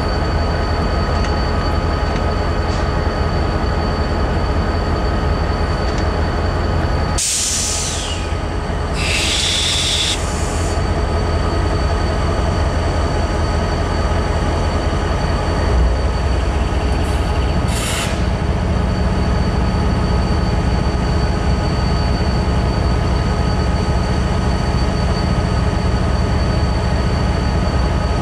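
Diesel road-switcher locomotive idling, a steady low engine rumble with a faint whine above it. A few short high-pitched sounds break in about seven to ten seconds in and again near eighteen seconds, where a deeper steady hum joins the engine note.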